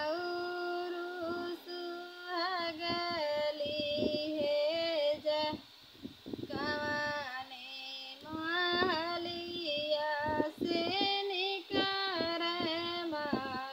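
A woman singing a North Indian folk wedding song (vivah geet) solo and unaccompanied, in long held, wavering notes grouped into phrases with short breaths between them.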